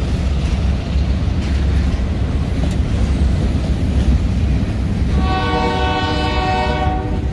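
Freight train of boxcars rolling slowly past with a steady low rumble and wheel noise. About five seconds in, the locomotive's horn sounds one steady blast of about two seconds.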